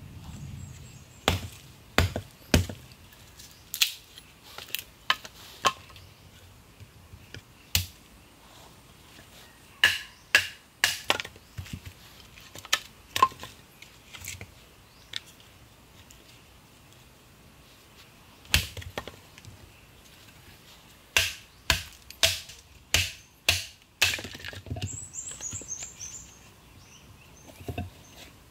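Machete blade chopping into and splitting short lengths of green branch wood into kindling: sharp, separate chops in irregular clusters with pauses between.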